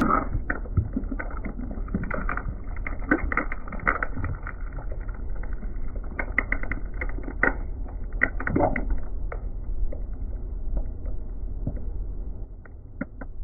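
Wet squelching and irregular crackling as pink hair gel squeezes out of plastic tubes crushed under a car tyre, over a steady low rumble. The squishes are thick at first and thin out after about nine seconds.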